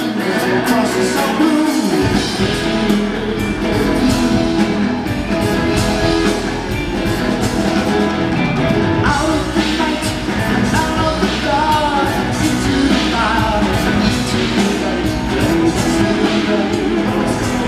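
Live progressive rock band playing, with a lead vocal over the full band. The low end comes in about two seconds in.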